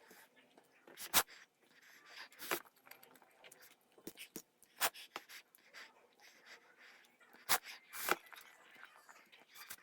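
Mouth sounds of someone eating extra-spicy instant noodles: slurping and chewing with several sharp smacks, and quick breaths against the chili heat.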